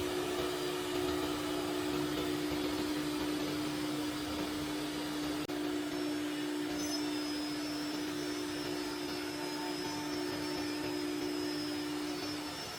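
Four-axis CNC router machining wood panel: a steady motor hum with one constant tone over an even hiss. It cuts out for an instant about five and a half seconds in.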